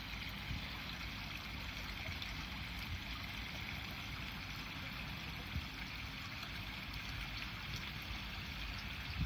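Steady trickling of running water, with a low rumble underneath and an occasional faint tick.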